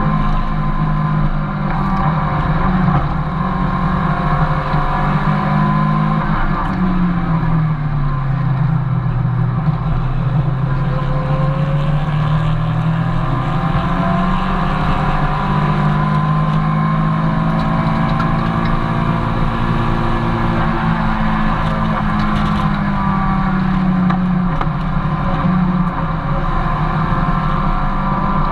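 Mazda MX-5 Miata's four-cylinder engine at racing speed, heard from inside the cabin. The revs fall about seven seconds in and climb back up over the next several seconds, then dip briefly again near the end.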